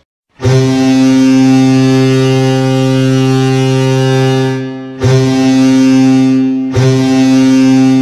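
Ilves ice hockey goal horn sounding three blasts on one deep, steady pitch. The first blast is long, about four seconds, and fades out. The second is short, and the third is still sounding at the end.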